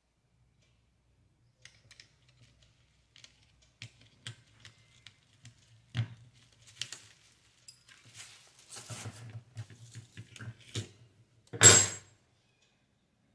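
Handling noise of objects being moved about: scattered light clicks and taps, a stretch of rustling about eight to ten seconds in, and one louder clatter near the end.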